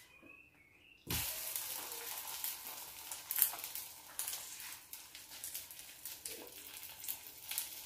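Oil sizzling and crackling in a frying pan as egg-dipped cabbage leaves fry. The sizzle starts suddenly about a second in.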